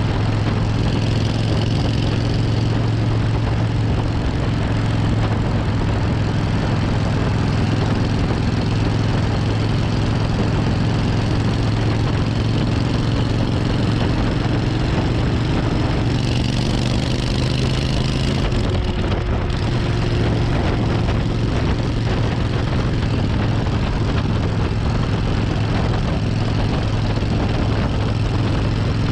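Suzuki Intruder 1400's V-twin engine running steadily at cruising speed. Its note changes slightly about 18 seconds in, and a brief hiss rises over it from about 16 to 19 seconds.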